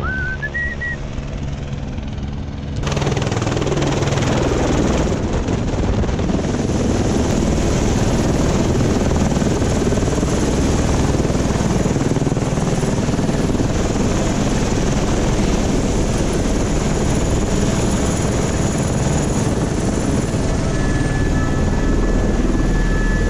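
Helicopter running up close: a steady, dense turbine-and-rotor roar that steps up in loudness about three seconds in and then holds steady.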